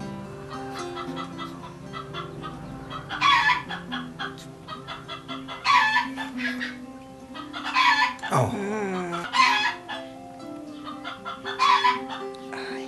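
Chickens calling, with short calls recurring about every two or three seconds over quiet background music.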